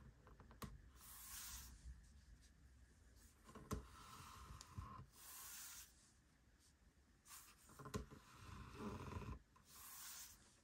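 Faint handling sounds of a diecast model airliner being turned on its display stand on a desk mat: a few light clicks and stretches of soft rubbing as hands grip, rotate and let go of the model.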